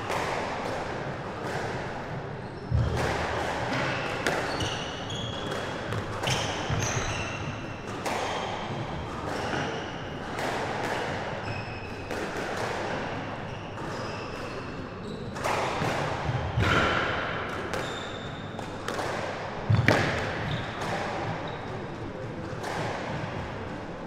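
Squash rally: sharp, irregular cracks of the ball off rackets, walls and the wooden floor, each ringing briefly around the court, with frequent short squeaks of court shoes on the floor.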